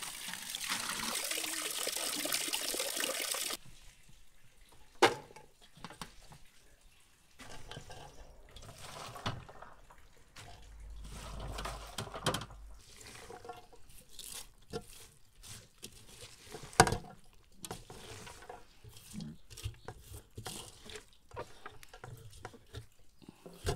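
Running water splashing onto chopped green beans in a stainless steel colander, stopping suddenly about three and a half seconds in. After that come quieter rustling and clattering as the wet beans are handled in the colander and tipped into a pot, with two sharp knocks, about five seconds in and past the middle.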